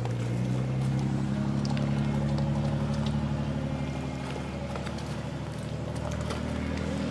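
A boat engine running steadily in the harbour, a low even hum with a slight shift in pitch now and then.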